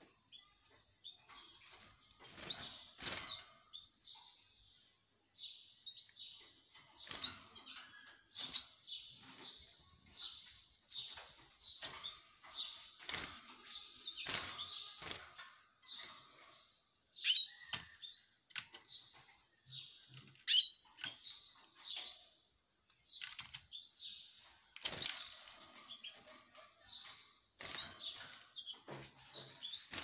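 Caged canaries chirping in short repeated calls, with wings fluttering and sharp little knocks as they hop about the perches and wire.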